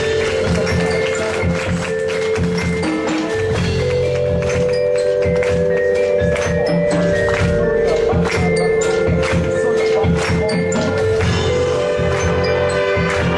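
Ringtone music: held tones over a pulsing bass line and a steady beat.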